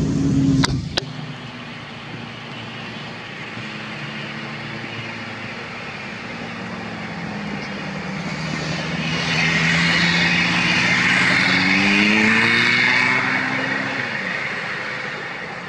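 A motor vehicle's engine running nearby, its note slowly rising in pitch while it grows louder for a few seconds, then fading away as it passes. It opens with a low rumble and two sharp clicks that stop about a second in.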